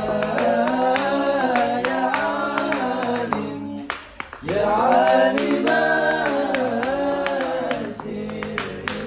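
Male voices singing a sholawat together over a light regular tapping beat. The singing breaks off briefly about four seconds in, then the next phrase swoops up into a louder line.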